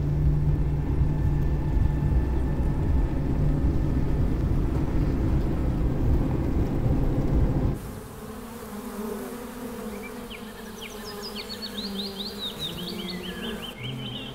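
A loud low rumble that cuts off about eight seconds in, followed by honeybees buzzing in flight around a hive entrance, with a run of quick high chirps near the end.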